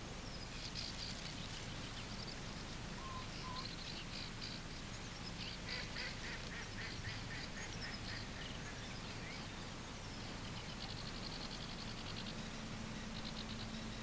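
Birds singing: short runs of quick, high chattering notes repeated again and again, with a few falling whistles among them.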